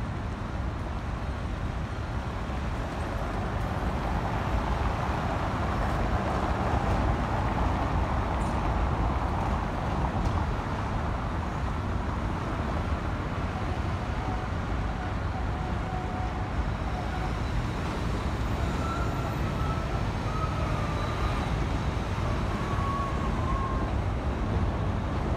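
Steady city road-traffic noise, a constant low rumble. A faint wavering siren comes in about halfway through.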